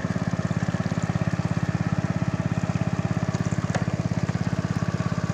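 Small engine running steadily with an even, rapid pulse, driving a bamboo raft along the river; the water churns behind the raft.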